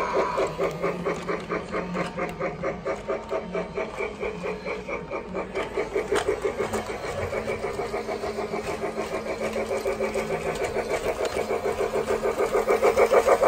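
Remote-controlled Polar Express toy train running on its track: a rapid, even, rhythmic pulsing that quickens toward the end, with one sharp click about halfway through.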